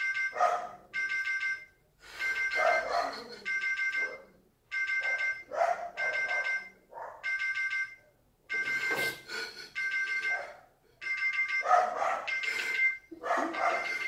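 Mobile phone ringing: a ringtone of high beeping tones repeating in bursts about half a second to a second long. Short, sharp cries come several times between the rings.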